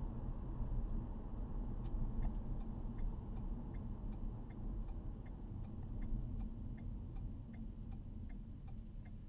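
Turn-signal indicator clicking steadily in the cabin of a 2012 Ford Fusion Sport, starting about two seconds in at between two and three clicks a second. Under it, the low rumble of the car and its resonator-deleted exhaust slowly dies away as it slows.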